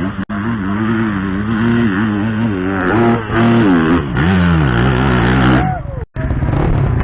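Dirt bike engine revving hard under load up a steep hill climb, its pitch rising and falling again and again as the throttle is worked, with two brief dropouts.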